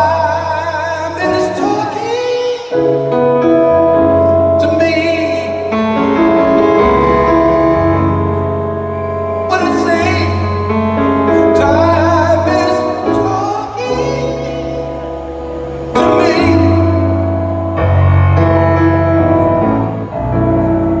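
Live pop-soul performance: a man singing with a wavering vibrato over sustained grand piano chords and a bass line.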